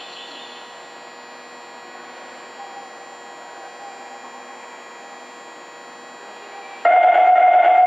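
Low steady hum of a subway station for most of the time, then about seven seconds in a 2000-series subway train's departure warning horn starts suddenly: a loud, steady, single-pitched tone, sounded as part of the train's pre-service inspection.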